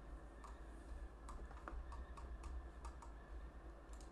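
Faint, irregular clicks from a computer keyboard and mouse, about a dozen over a few seconds, over a low steady hum.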